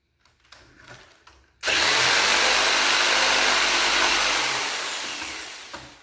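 Jigsaw cutting through the end of a painted baseboard, taking extra material out of the back of a coped corner for blade clearance. A few light handling clicks, then the saw starts abruptly about a second and a half in, runs steadily, and dies away near the end as it winds down.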